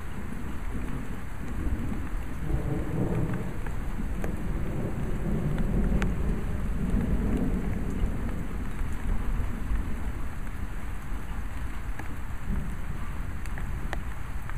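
Steady rain from a thunderstorm, with a long low rumble of thunder that swells about two seconds in and fades after the middle. A few sharp ticks of drops land close to the microphone.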